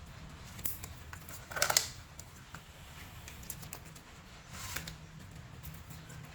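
Milk slime being squished and pulled by hand, giving sticky crackling pops and clicks. The loudest squish comes about one and a half seconds in and another near the five-second mark.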